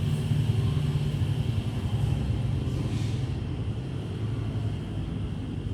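Steady low background rumble with a faint steady high hiss above it.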